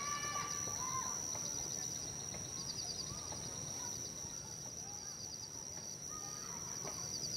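Forest ambience: a steady high-pitched insect drone, with short chirping trills repeating every second or two and scattered bird calls, more of them about the first second.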